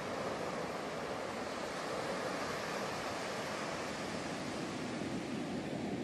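Ocean surf: a steady rush of waves breaking on the shore, with some wind.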